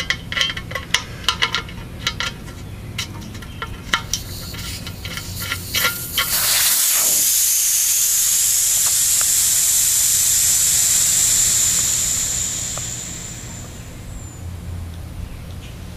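A few seconds of clicking and tapping at a reverse osmosis storage tank's Schrader air valve, then compressed air rushing out of the valve with a loud, steady hiss for about six seconds that tails off as the tank's air charge empties.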